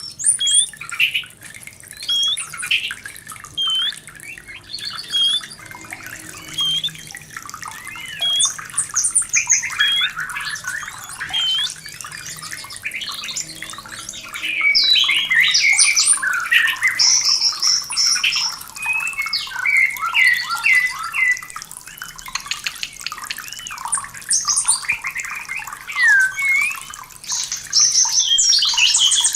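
White-rumped shama (murai batu) in breeding condition singing: at first spaced single hooked whistles, then from about eight seconds on denser, rapid phrases of varied whistles and chattering notes.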